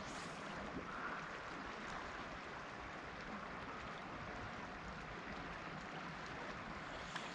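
Steady rush of a flowing river running over rocks along the bank. One brief click near the end.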